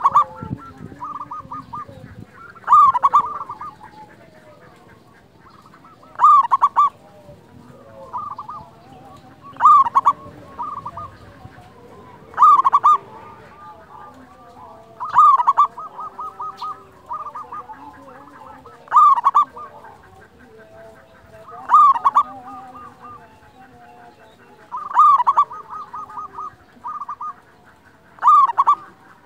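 Zebra dove (perkutut, local wild-type) singing its cooing song: about ten phrases, one roughly every three seconds, each a loud note followed by a quick run of short notes.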